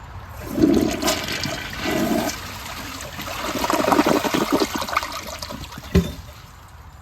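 Glacier Bay toilet flushing, with water rushing and gurgling through the bowl in several surges to rinse dirt from the bowl, then dying down. Near the end there is a single sharp knock.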